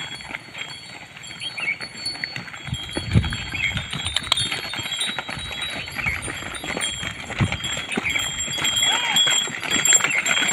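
A herd of zebu cattle and water buffalo walking past, hooves scuffing and clopping irregularly on a dry dirt road, growing louder as the animals reach the microphone. A couple of low thumps and faint thin high tones sound through it.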